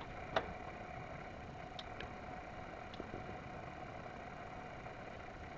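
Faint outdoor background with a thin steady hum, broken by one sharp click about half a second in and a few faint ticks after it.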